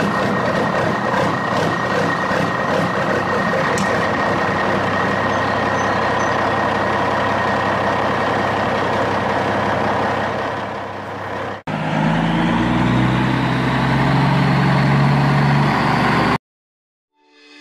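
Truck engine sound effect running steadily, then cutting abruptly about two-thirds of the way through to a deeper idling engine that stops about a second before the end.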